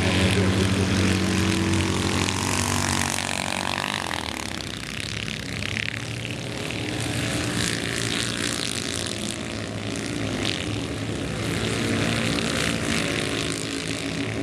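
Several Citroën 2CV race cars' air-cooled flat-twin engines buzzing at high revs as they race round a dirt track, loudest in the first couple of seconds, fading a little, then swelling again near the end.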